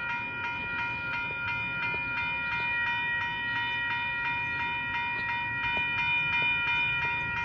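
Railroad grade-crossing warning bell ringing steadily over a low rumble from the approaching train.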